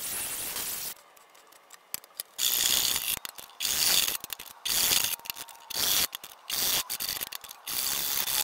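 Angle grinder with a flap disc sanding a steel cleaver blade, stopping about a second in. Then a hand saw cutting a clamped piece of hardwood in a series of repeated strokes.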